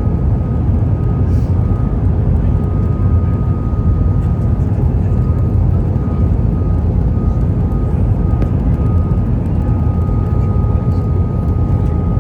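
Cabin noise inside an Airbus A320-200 in flight: a steady rush of airflow and engine drone, with a thin, slightly wavering whine over it.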